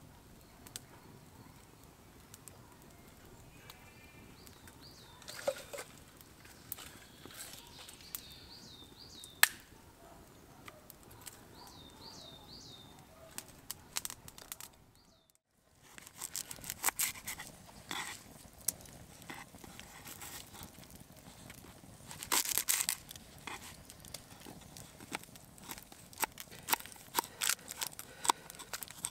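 Woodland with a campfire crackling in sparse clicks and a bird calling in short repeated chirps. About halfway through the sound cuts and changes to close-up knife work on a wooden chopping board: clicks, scrapes and tearing as a small onion is peeled and trimmed, busiest a few seconds after the cut.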